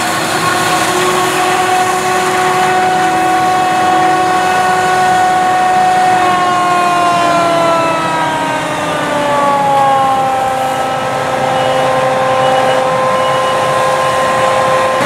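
Claas Jaguar 980 self-propelled forage harvester chopping maize: a steady diesel roar with a high mechanical whine on top. About halfway through, the whine slides down in pitch and holds there, lower.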